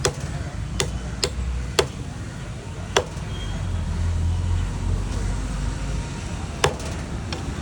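A fish cutter's blade chopping a piranha into pieces: about six sharp, irregularly spaced chops, with a long gap before the last one, over a steady low rumble.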